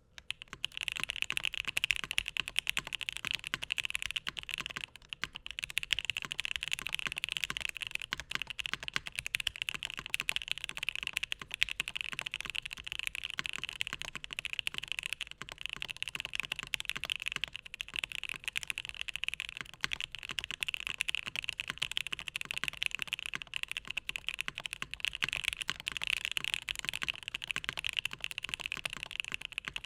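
Fast continuous typing on a Bakeneko60 custom mechanical keyboard with Alpaca linear switches in an aluminum plate and GMK keycaps: a dense stream of keystroke clacks, with a brief pause about five seconds in.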